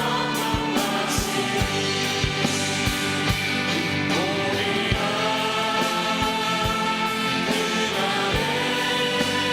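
A church choir sings a worship song over a band, with a drum beat and cymbals.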